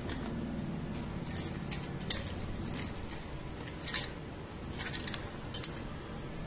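Sharp metallic clicks and snips of a hand tool working the copper lead wires of an electric motor stator, coming in small clusters, loudest about two and four seconds in.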